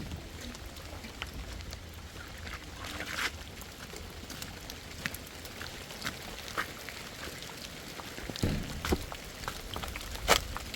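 Rain falling, with scattered drips and taps over a low steady rumble, and two louder knocks near the end.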